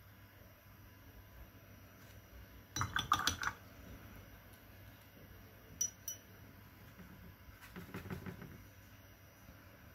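Paintbrushes clicking and clattering against each other as one is picked from a pile, a quick cluster about three seconds in, then two light clicks. Near the end, a brush scrubbing and tapping in the pans of a metal watercolour tin.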